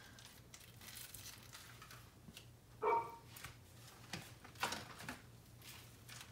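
Faint scattered taps and soft handling sounds as pieces of raw salmon are laid into a baking pan, with one brief louder sound about three seconds in.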